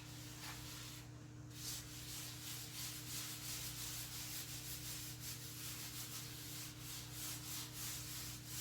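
Oil being wiped over a cast iron Dutch oven lid by hand: faint rubbing in quick repeated strokes.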